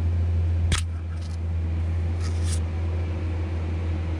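Steady low hum, with a single sharp tap under a second in and brief soft rustles around two seconds in.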